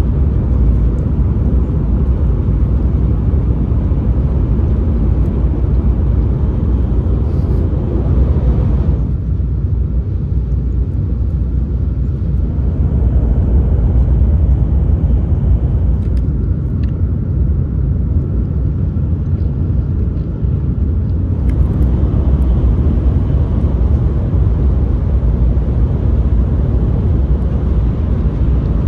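Shinkansen bullet train cabin noise while running at speed: a steady low rumble with a hiss above it. The hiss thins out for a few seconds about nine seconds in, and again for several seconds a little later.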